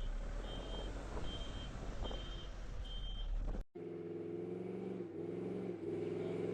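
An electronic beeper gives five evenly spaced high beeps, a little over one a second, over vehicle and road rumble. After a sudden cut about halfway through, a vehicle engine drones steadily.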